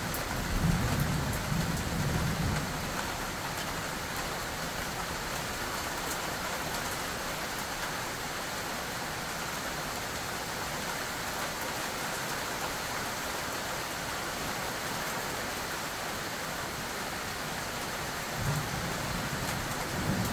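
Steady rain hissing during a thunderstorm, with a deep rumble of thunder in the first couple of seconds that dies away. Short low rumbles return near the end.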